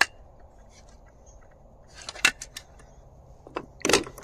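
Clicks and knocks of 3D-printed plastic gun parts being handled: one sharp click at the start, a few light clicks about two seconds in, and a louder clatter near the end as the receiver is set down and other parts are picked up from the wooden deck.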